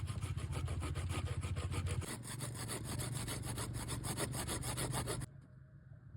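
Wood being sawn with rapid, even back-and-forth strokes, several a second, stopping suddenly about five seconds in.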